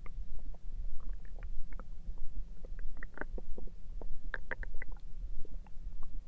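Human stomach gurgling: many short, irregular squeaky gurgles and pops over a steady low rumble, with louder clusters about three seconds and four and a half seconds in.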